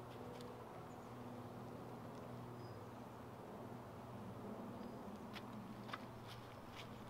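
Faint crackles and small snaps of moss and dry twigs being pulled up and pressed onto a pole shelter wall, bunched in the second half, over a steady low buzzing hum.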